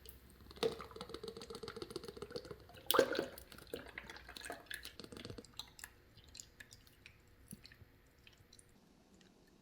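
Rapid, irregular small clicks and taps, densest in the first half and thinning out later, with a louder knock about three seconds in.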